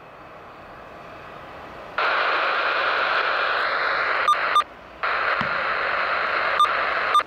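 Air traffic control radio static: two keyed transmissions that carry only hiss, each about two and a half seconds long. The first starts about two seconds in and the second about five seconds in. Each ends with short clicks, and no voice is heard.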